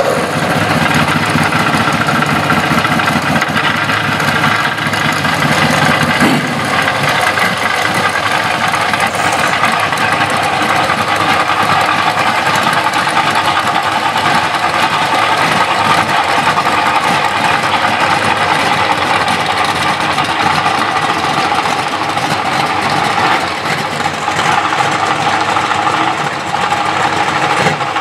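Chevrolet Malibu drag car's engine idling loudly with a choppy, pulsing beat for the first few seconds, then settling into a steadier note, with no hard revving.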